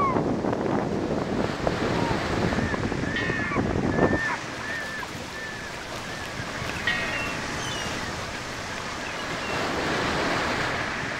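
Surf washing on a sandy beach, with wind buffeting the microphone. The heavier low rumble drops away suddenly about four seconds in, leaving a softer wash of surf, and a few short high calls sound over it.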